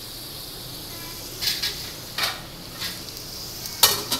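Sliced onions frying in hot oil in a pan, a steady sizzle as they brown. A metal slotted spatula stirs them, scraping against the pan several times in the second half, loudest near the end.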